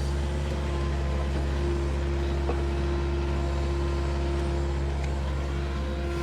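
Caterpillar excavator's diesel engine running steadily at a constant speed while digging, a deep even hum with a few steady tones over it.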